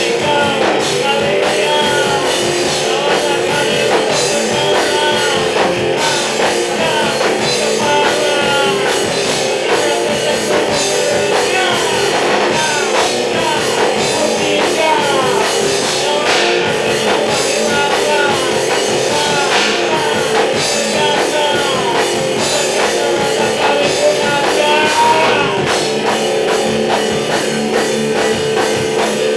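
Rock band playing live and loud: two electric guitars over a drum kit, with notes bending up and down in pitch throughout.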